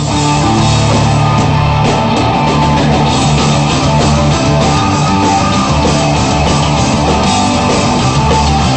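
Loud hard rock music with electric guitars and a drum kit, with a punk edge.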